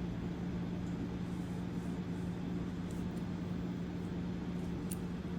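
Steady low hum and hiss of room noise, with two faint small clicks as tweezers work the coin-cell battery out of the watch.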